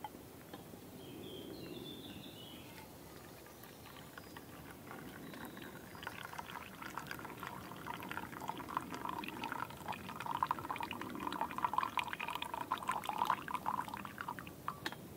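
Tea poured in a thin stream from a stainless steel camping pot into a stainless steel mug, splashing and trickling and growing louder as the mug fills, stopping near the end.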